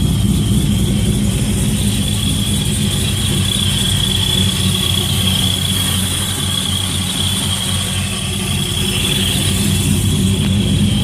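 Boosted car engine idling steadily, with a high-pitched whine held over the low engine note.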